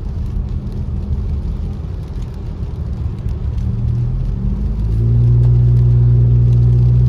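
Car interior sound while driving on a wet road: engine and tyre noise as a steady low hum. About four to five seconds in, the engine note rises a little in pitch and gets louder as the car picks up speed.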